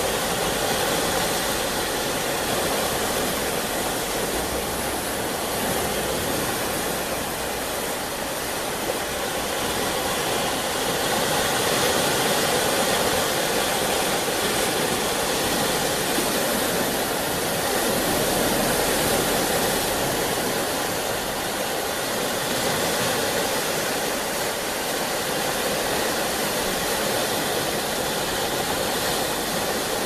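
Atlantic Ocean surf: a steady rushing wash of waves that swells gently a few times.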